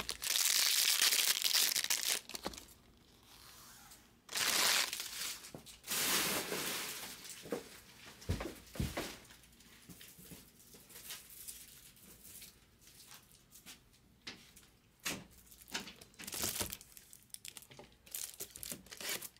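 Stacks of baseball cards being handled: loud crinkling and rustling for the first two seconds, two more bursts about four and six seconds in, then lighter scattered rustles and soft clicks.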